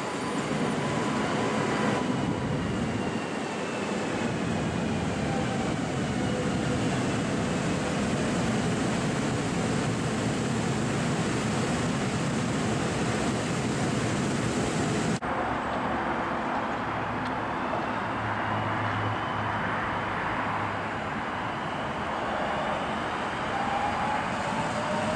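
Electric multiple unit trains running, their traction motors whining in gliding pitches over a steady rolling rumble. About fifteen seconds in the sound cuts to a WKD EN97 unit on open track, its motor whine rising as it passes.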